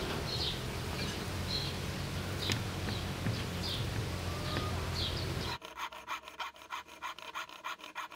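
A bee buzzing with a steady low hum while birds chirp. About five and a half seconds in, it cuts to a fine-bladed saw cutting a thin metal strip against a wooden board in quick, even back-and-forth strokes.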